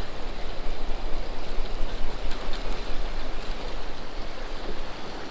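Steady rushing noise of wind and rain buffeting the microphone on an open boat, with a low rumble and a few faint ticks about two to three seconds in.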